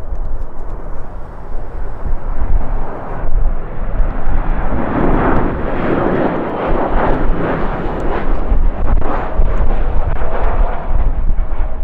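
Jet airliner passing, its engine noise swelling about a third of the way in and slowly easing off, over strong gusty wind buffeting the microphone.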